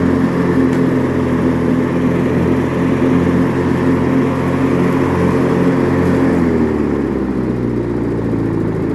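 Warmed-up Briggs & Stratton opposed-twin engine of a White LT 1650 riding mower running steadily. About six and a half seconds in, its speed drops smoothly to a lower, steady idle.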